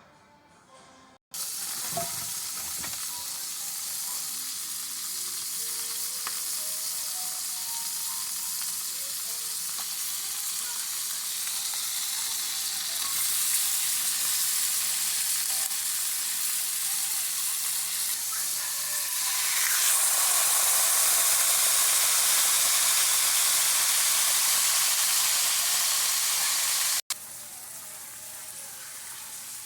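Food frying in a hot pan: a steady sizzle that starts abruptly about a second in and grows louder about two-thirds of the way through. It breaks off suddenly near the end and is followed by a quieter sizzle.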